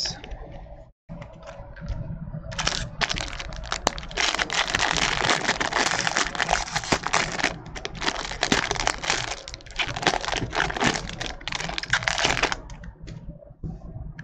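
Foil baseball-card pack wrapper being torn open and crinkled by hand, a dense crackling rustle that starts a couple of seconds in and stops near the end.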